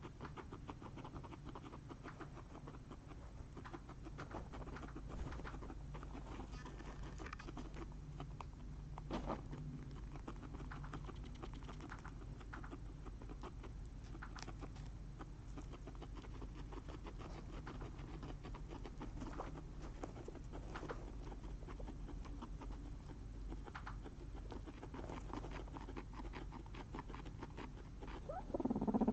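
Guinea pigs nibbling corn on the cob and shuffling in their bedding: many small irregular clicks and rustles over a steady low hum. A louder pitched sound begins right at the end.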